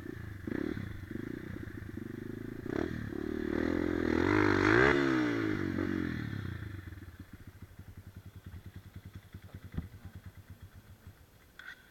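Dirt bike engine running, revving up and back down once about four seconds in, then settling to a slow, uneven idle that fades and dies away near the end.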